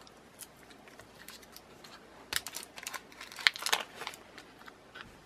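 Small clear plastic packet crinkling as it is opened and the lens is slid out, in a few short crackly bursts starting about two seconds in.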